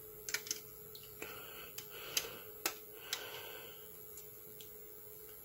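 Faint clicks and light scraping of the Tamiya 1/24 Ford Mustang GT4 kit's white plastic body shell and chassis being handled and slid together, the body sliding easily into place.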